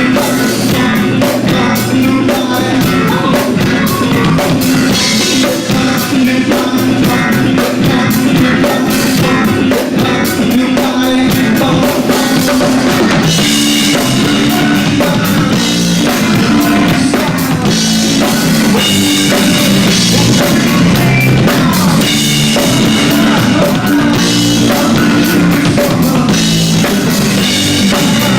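Rock band playing live at a sound check: drum kit, bass guitar and electric guitar running a funk-rock groove. About halfway through the bass line changes and the cymbals get busier.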